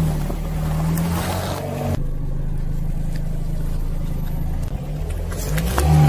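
Car engine running at low revs, a steady low hum, with a few sharp cracks near the end.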